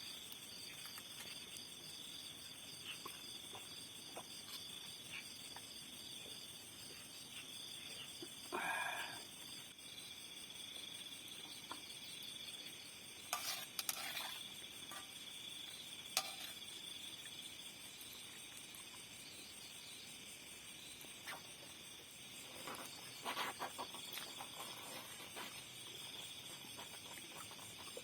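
Steady high trilling of crickets or other night insects, with a few brief knocks and clicks breaking in about a third of the way through, around the middle and near the end.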